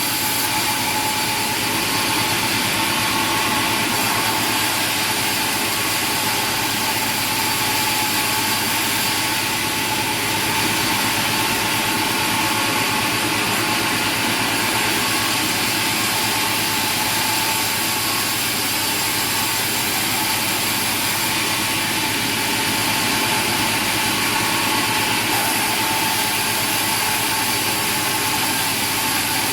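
A machine running steadily: an even, unchanging drone with a few steady tones in it.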